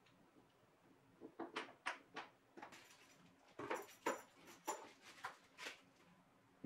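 A series of light, irregular taps and clicks from small parts being handled on a wooden workbench. Plywood rings are set down, then small metal bolts and nuts clink together, some of the clicks in the middle with a bright metallic ring.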